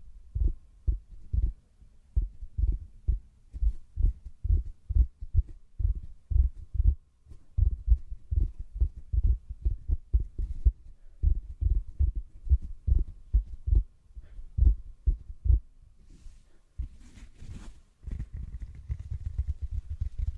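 A large natural sponge is pressed and squeezed rhythmically against a microphone's mesh grille, giving a steady run of soft, muffled low thumps about two to three times a second. Near the end the thumps give way to a denser rubbing and rumbling as the sponge is drawn across and away from the grille.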